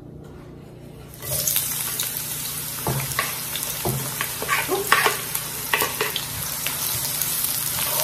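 Chopped garlic, shallots and chillies hitting hot oil in a wok and sizzling, starting suddenly about a second in. They are then stirred, with the utensil clicking and scraping against the pan several times over the steady sizzle.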